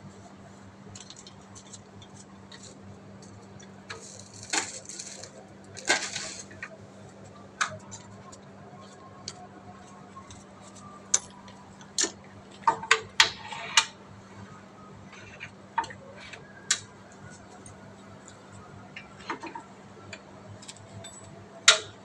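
Scattered knocks and clicks from a storage water heater tank being lifted and hooked onto its wall brackets, with a quick cluster of knocks about twelve to fourteen seconds in and a sharp knock near the end. Brief scraping rustles come about four to six seconds in, over a low steady hum.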